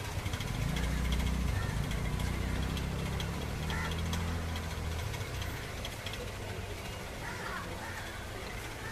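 A motor vehicle's engine running with a low hum, loudest in the first few seconds and fading after about five seconds, with faint scattered clicks and distant voices.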